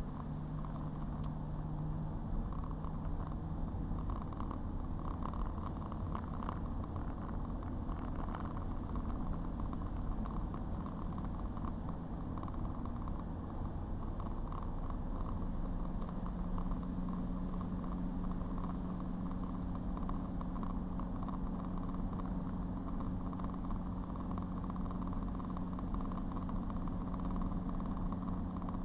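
A car driving: a steady engine hum over road noise, the engine note stepping up a little about halfway through.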